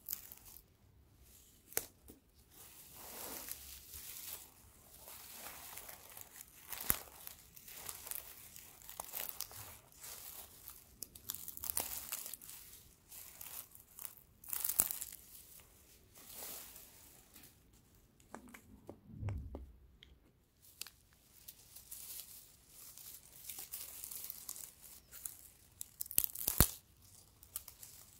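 Dry straw stalks handled close to the microphone: fingers pull and split them apart with rustling, crackling and tearing, and sharp snaps now and then. A dull low bump comes about two-thirds of the way through.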